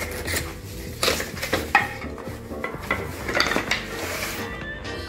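Bamboo legs of a flat-pack plant stand clacking against each other and the cardboard box as they are lifted out, with the paper wrapping rustling. The sharp knocks come at irregular moments.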